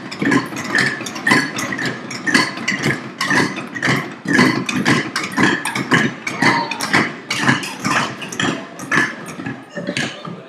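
Table tennis rally: the ball clicking back and forth off the table and wooden paddles, about three hits a second, fading near the end.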